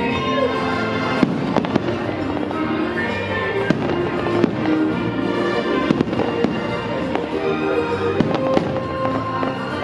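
Fireworks shells bursting in a dozen or so sharp bangs at irregular intervals, over the show's music soundtrack playing continuously.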